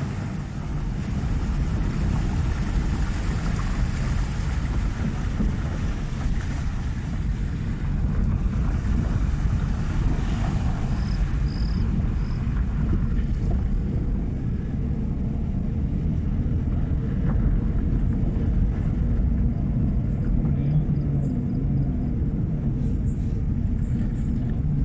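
Steady low rumble of a vehicle driving, with wind noise on the microphone.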